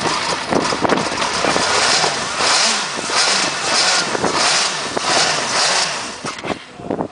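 Engine of a Formula Student single-seater race car being revved for a trackside noise test, in which it is held near three-quarters of maximum revs against a 120 dB limit. It crackles at first, then rises and falls in a run of repeated revs, about one a second or a little faster, and drops away near the end.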